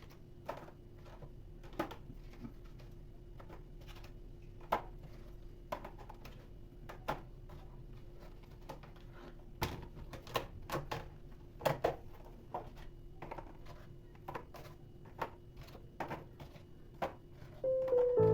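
Scattered light clicks and knocks of kitchen items being handled and set down, irregular and of varying loudness, over a faint steady hum. Piano music comes in near the end.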